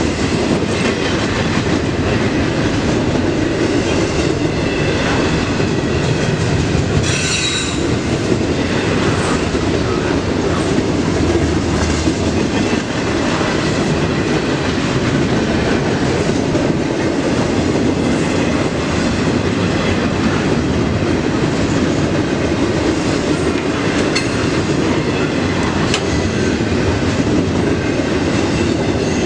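Double-stack intermodal freight train passing close by, its steel wheels rumbling and clacking over the rail joints in a loud, steady stream. A brief high-pitched wheel squeal comes about seven seconds in.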